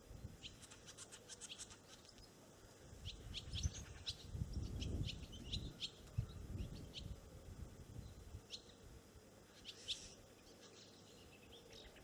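Small birds chirping in short, high calls throughout, with a louder low rumbling rush from about three to seven seconds in, as the flock takes off from the wire.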